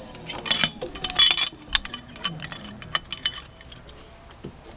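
Zip line harness hardware, steel carabiners and trolley, clinking and clicking against each other as it is handled and clipped. A quick cluster of sharp, ringing metal clinks comes in the first second and a half, then lighter scattered clicks.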